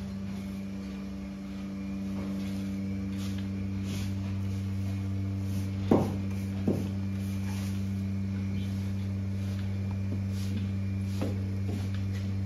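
Push-broom bristles sweeping straw and feed over a concrete barn floor against a steady low machine hum, with two sharp knocks about six seconds in and a couple of lighter ones near the end.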